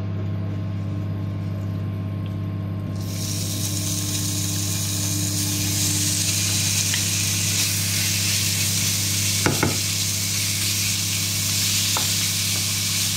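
Diced chicken thigh pieces going into hot oil in a nonstick frying pan. The oil starts sizzling suddenly about three seconds in and keeps up a steady sizzle, over a steady low hum. There is a sharp knock of the spatula against the pan partway through.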